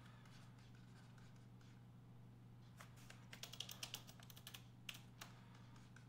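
Near silence over a low steady hum, broken about three seconds in by a quick run of faint clicks and taps lasting about two seconds, from a computer input device as a word is handwritten onto a digital whiteboard.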